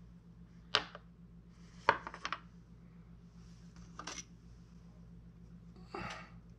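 Small sculpting hand tools clicking and knocking on a wooden workbench as they are put down and picked up: one sharp click, a quick clatter of several knocks about two seconds in, then two softer knocks.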